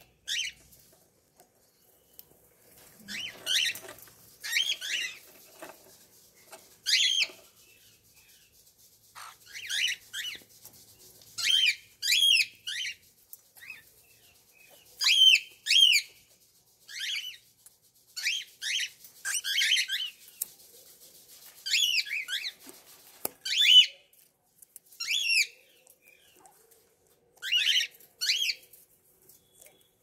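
Young cockatiels calling: short chirping calls that sweep up and down in pitch, coming singly or in quick pairs every second or two.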